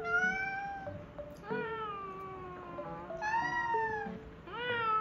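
A woman imitating a cat's meow: four drawn-out meows, each rising and then falling in pitch, about a second and a half apart.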